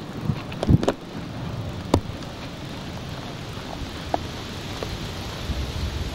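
Wind blowing through trees and bushes: a steady rustling hiss, with a few light clicks about a second and two seconds in.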